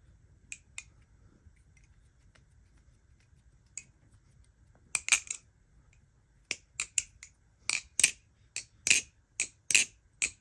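Marcolo Comet balisong (butterfly knife) being flipped: sharp clacks of its handles swinging and striking closed. A few scattered clacks at first, then from about six and a half seconds in a quick run of them, about three a second.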